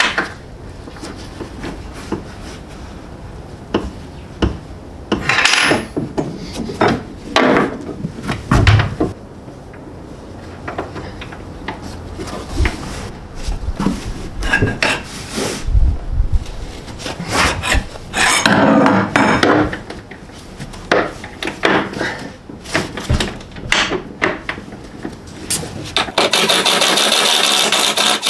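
Irregular scraping, rubbing and knocking of hand work with tools on metal parts, then a steady harsh whirring that starts near the end.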